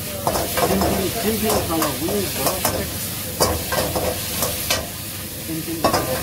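Food stir-frying in a wok over a high gas flame: steady sizzling, with a metal ladle scraping and knocking against the wok several times, the sharpest knocks about three and a half seconds in and near the end.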